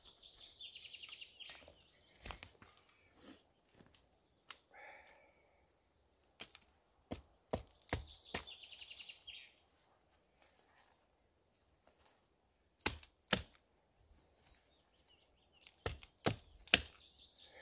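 Small axe chopping branches off a fallen dead tree: sharp wooden knocks and cracks, some single and some in quick clusters. A songbird trills three times between the strokes.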